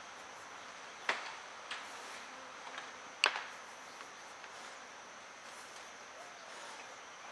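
Sharp cracks of bamboo stems snapping as an elephant feeds: two loud snaps about two seconds apart, with a couple of fainter ones between them. A steady high insect drone runs underneath.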